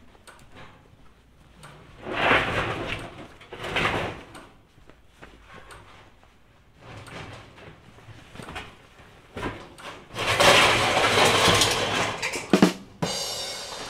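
Galvanized steel stock tank dragged across the barn floor: a long scraping rumble in the last few seconds, with a sharp knock and a short metallic ring near the end. Shorter scraping noises come earlier.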